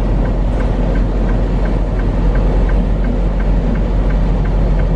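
Truck's engine and road noise heard inside the cab: a steady low rumble, with faint light ticks several times a second.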